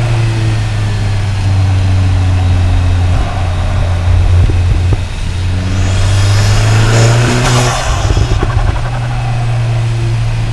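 Cupra Ateca's turbocharged 2.0-litre EA888 gen 3 four-cylinder, heard through microphones at the intake and exhaust while the car drives with a steady engine note. About six seconds in, a rising rush of intake and turbo air swells for a couple of seconds as the engine pulls, then fades back.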